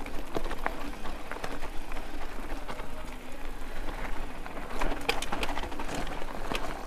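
Mountain bike rolling down a dirt and rock singletrack: tyres crunching over the trail, with frequent clicks and rattles from the bike as it goes over stones.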